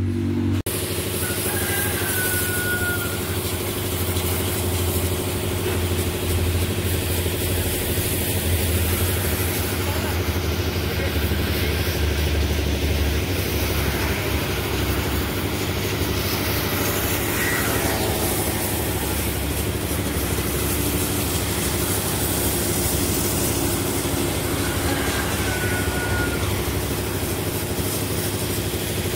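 Pressure-washer pump motor running steadily, with a high-pressure water jet hissing and spattering against the side of a truck as it is washed down.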